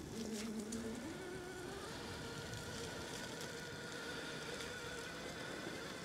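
Axial SCX6 1/6-scale RC crawler's electric motor and geared drivetrain whining as it drives, the whine stepping up in pitch about a second in and then holding steady.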